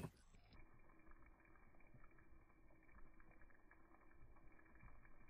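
Faint bubbling of a saucepan of chicken in tomato sauce coming to the boil on a gas burner, a low, even simmer with small scattered pops.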